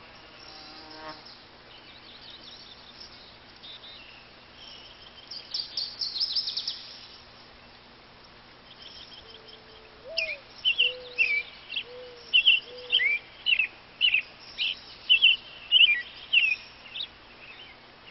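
Wild birds singing: a quick high trill about six seconds in, then a run of about a dozen short, loud chirps from about ten seconds on, over a faint steady hum.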